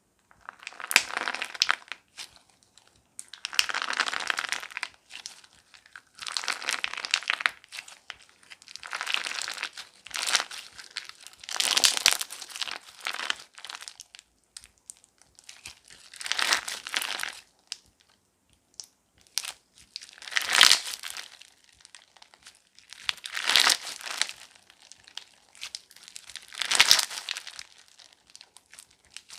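Slime being squeezed and pressed by hand, giving about ten crackling bursts, one every two to three seconds.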